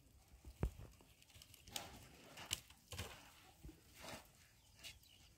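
Faint, scattered splashes and sloshes of elephants moving about in a waterhole, about half a dozen irregular bursts of water over a soft outdoor hush.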